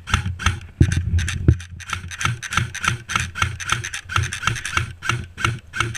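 Quick footsteps over rough ground, about four a second, each a crunchy knock with a low thud under it, as if moving fast with the microphone carried on the body.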